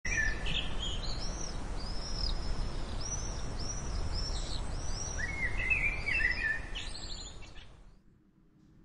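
Birds chirping over a steady low rumbling outdoor noise: repeated short, high, arched chirps, with a quick falling run of chirps a little past the middle, all fading out near the end.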